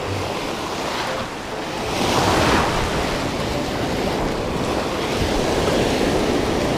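Ocean surf breaking and washing through the shallows close by, swelling louder about two seconds in, with wind buffeting the microphone.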